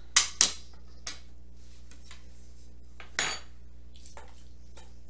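Metal utensils clinking and scraping against a plate and a stainless steel pot as food is dished up. There are two sharp clinks right at the start, a lighter tap a second in, and a louder, longer scrape about three seconds in, then a few faint taps.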